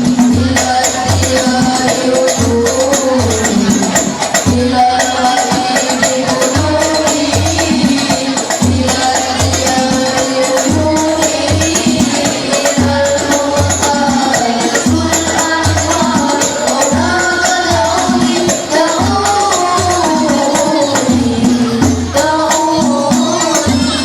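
Banjari ensemble: voices singing an Arabic sholawat melody together over rebana frame drums beating a steady rhythm.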